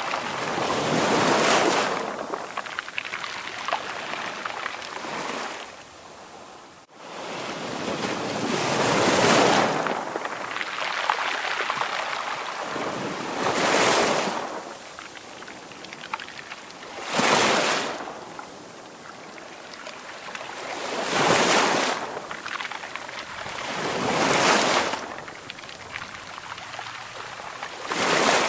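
Sea waves breaking one after another, about every three to four seconds. Each is a rush of surf that swells and then fades. The sound drops out briefly and restarts suddenly about seven seconds in.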